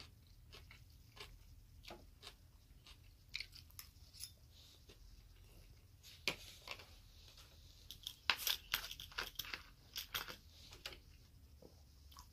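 Close-up eating sounds of a man chewing a sushi roll: scattered wet mouth clicks and smacks, with a cluster of louder ones about eight seconds in.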